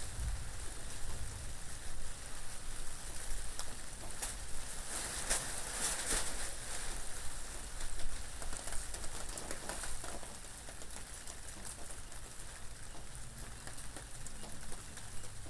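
Steady rain with many small drop impacts and a low wind rumble underneath; the rain swells about a third of the way in, then eases a little past the middle.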